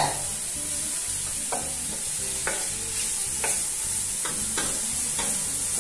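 Chopped eggplant, peppers and chorizo sizzling steadily in oil in a stainless steel pot while a wooden spoon stirs them, giving a string of short knocks and scrapes against the pot.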